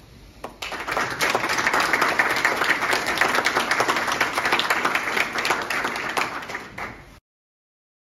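Audience applauding: a dense patter of many hands clapping that builds within the first second, holds steady and is cut off abruptly near the end.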